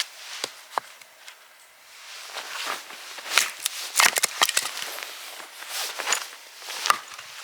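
Irregular crunches and clicks, with a quieter stretch about a second in.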